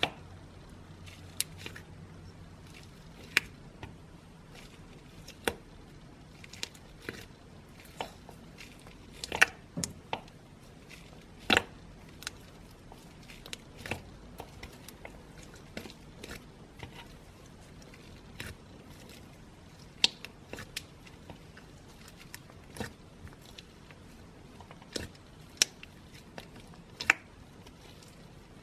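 Slime being played with by hand, giving off irregular sharp pops and clicks, roughly one a second, some much louder than others.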